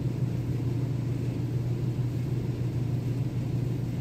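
Steady low background hum that does not change.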